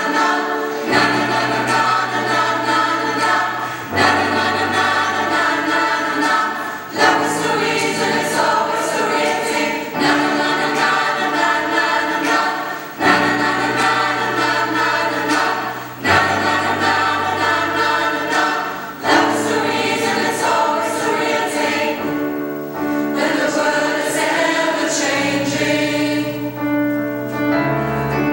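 Mixed choir of women's and men's voices singing in harmony, the chords changing about every three seconds.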